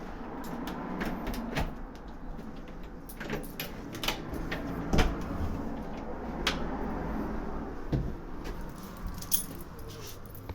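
Irregular light metallic clinks and clicks, like small metal objects being handled, over a steady low rumble.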